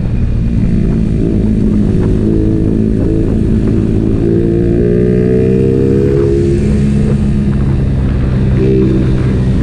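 Motorcycle engine running steadily while riding, its engine note shifting slightly in pitch, over a heavy low rumble.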